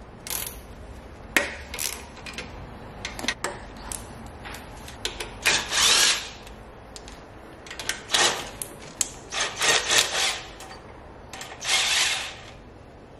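A hand tool or power tool undoing the 10 mm bolts that hold an EGR valve on a diesel engine. It runs in several short bursts from about five seconds in, with scattered clicks and metal knocks before and between them.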